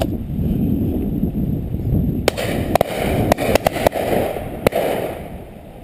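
Wind buffeting the microphone, with a quick run of about seven sharp cracks from a little past two seconds in to nearly five seconds: shotguns firing in the distance on a pheasant drive.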